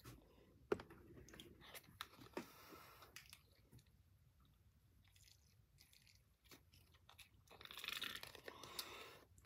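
Faint chewing with small crunches, with scattered light clicks and a short rustling patch near the end.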